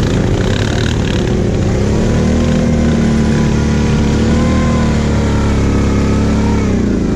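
Kawasaki KFX 700 quad's V-twin engine running under throttle through mud. The engine note rises about a second and a half in, holds steady, then drops near the end as the throttle comes off.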